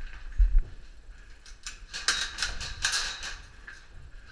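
Airsoft gunfire in close quarters: a flurry of irregular sharp cracks and clicks lasting about two seconds, after a dull thump about half a second in.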